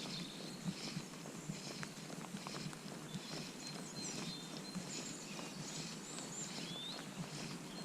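Outdoor ambience: a steady low background rumble with soft, irregular ticks and knocks. Small birds chirp now and then, mostly in the second half.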